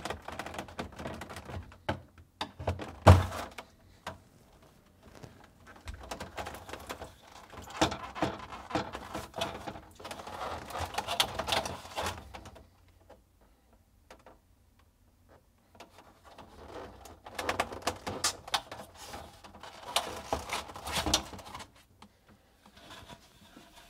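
Plastic air tower panel in a Whirlpool French door refrigerator being pried and pulled loose: its locking tabs release with one sharp click a few seconds in, then two longer stretches of clicking and rattling plastic with a quiet pause between.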